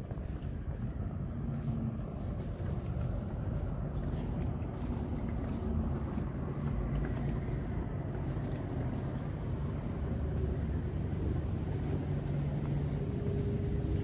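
Steady low rumble of motor vehicles, a continuous engine hum with no distinct events.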